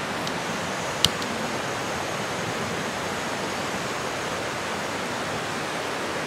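Steady, even rushing noise, like running water, with one sharp click about a second in.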